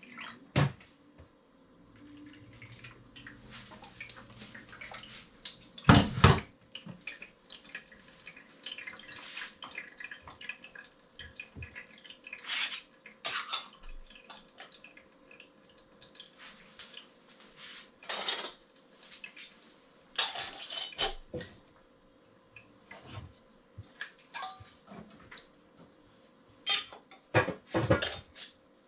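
Glass canning jars and their metal lids clinking and knocking on a kitchen counter as they are handled, with some pouring of liquid. Scattered sharp knocks; the loudest comes about six seconds in.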